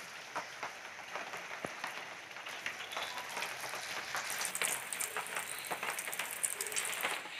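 Stuffed pappadam rolls deep-frying in hot coconut oil in a steel pan: a steady crackling sizzle with many small pops. It grows busier after about four seconds, once a second roll is in the oil.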